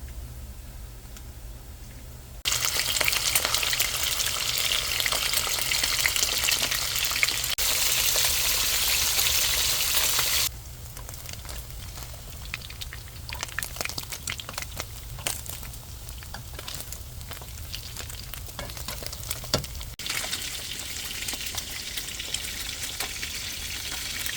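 Sea eel sizzling as it grills. A loud frying hiss starts a couple of seconds in and lasts about eight seconds, then drops to quieter crackling with scattered pops, growing louder again near the end.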